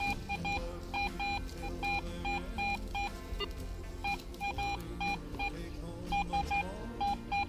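Garrett AT Pro metal detector beeping as its coil is swept over the ground: short mid-pitched beeps, a couple a second and often in quick pairs, its signal that metal lies under the coil.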